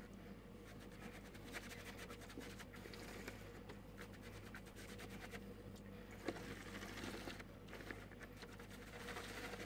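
Shaving brush swishing lather in a cup of Tabac shaving soap and brushing it onto five-day stubble: a faint, steady scratchy rustle, with a small click about six seconds in.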